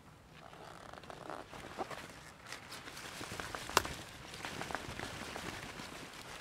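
A kohlrabi pulled up by hand from garden soil: leaves and stems rustling, the root tearing loose and soil crumbling and falling, with one sharp click near the middle.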